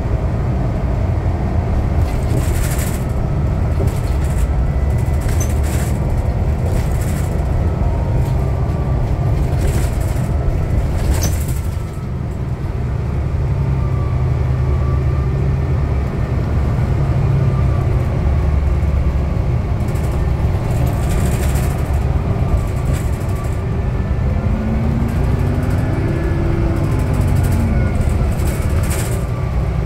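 Cabin sound of a New Flyer DE60LF hybrid articulated bus under way: a steady, loud low rumble of its Cummins ISL diesel and tyres, with faint whines that rise and fall and scattered knocks and rattles from the body.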